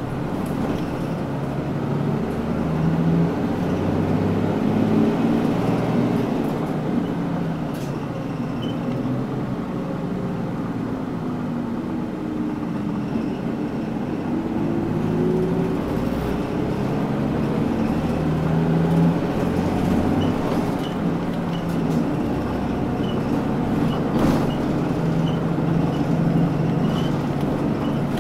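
Inside a Mitsubishi Fuso Aero Midi KK-MK27HM mid-size low-floor bus under way: the diesel engine runs steadily under road noise, and its note dips and then climbs again about halfway through. A faint regular ticking comes in during the last third.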